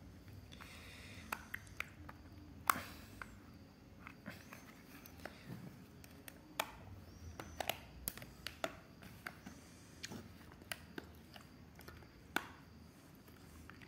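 Small blade prying and scraping along the seam of a plastic power bank casing, with faint handling noise and scattered sharp clicks and snaps, the loudest about three seconds in.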